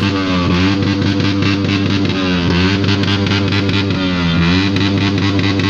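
Loud music led by a distorted electric guitar, its notes sliding down and back up about every two seconds over a steady low bass.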